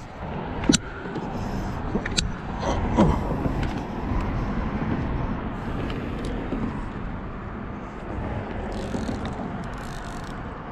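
Road traffic passing: a rush of tyres and engines that swells a few seconds in and slowly fades, with a couple of sharp clicks near the start.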